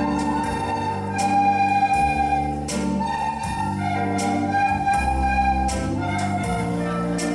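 A group of children playing soprano recorders in unison: a melody of held notes that change every second or so. They play over an accompaniment with low bass notes and a regular beat.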